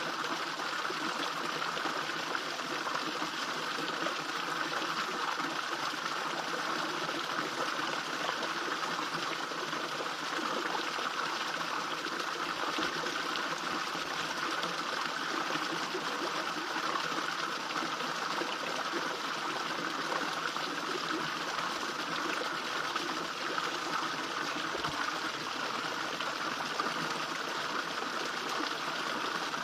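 Small garden pond waterfall splashing and trickling steadily into the pond, a continuous even rush of falling water.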